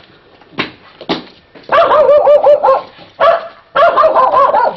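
A dog barking in short, loud barks, with a quick string of rapid yapping barks about two seconds in.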